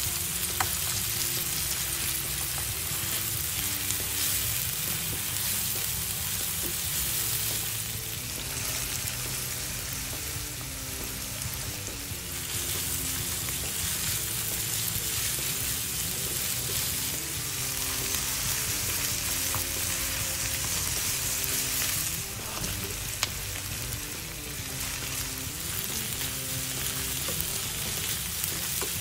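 Ground pork, garlic and sliced onion sizzling in oil in a nonstick frying pan, stirred and tossed with silicone-tipped tongs, with an occasional sharp click.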